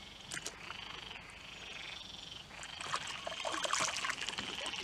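Frogs calling in two long trills, one after the other, with faint splashing and trickling water in the second half.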